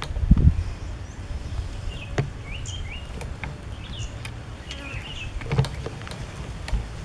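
Small bird chirping in short, high, repeated notes from about two seconds in. Low bumps and rumble near the start, the loudest sound here, come from the rifle being handled.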